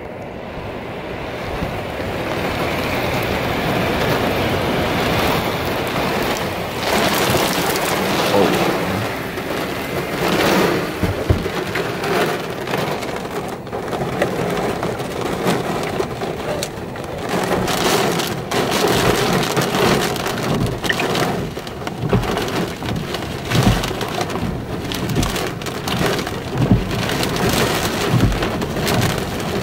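Heavy wind-driven rain of a severe squall line pelting a vehicle's glass, heard from inside; the downpour builds over the first few seconds, then stays heavy with many sharp drop impacts and occasional deep thuds.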